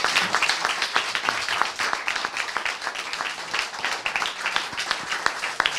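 Small audience applauding with hand claps, slowly dying down.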